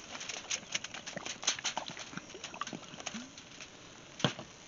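Clear plastic turkey-size oven bag crinkling and crackling as it is handled, in irregular sharp crackles, with one louder crackle near the end.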